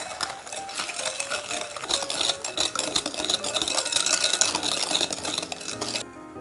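Wire whisk beating egg into creamed butter and sugar in a glass bowl: fast, dense scraping and clicking of the wires against the glass. It stops abruptly about six seconds in.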